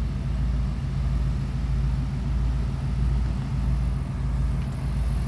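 RV's engine running slowly and steadily with a low hum as it creeps over rough ground.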